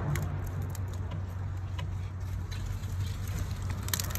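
A car engine idling steadily with a low, even hum. Light metallic tool clicks tick on top of it, louder near the end.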